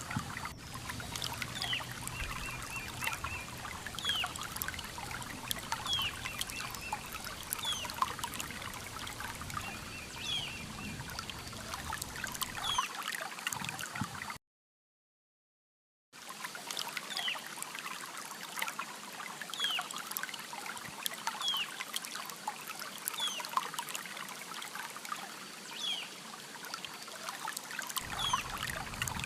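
River water flowing, with birds calling over it: a short falling whistle repeated every couple of seconds, many brief chirps and a few short trills. The sound cuts out completely for under two seconds about halfway through.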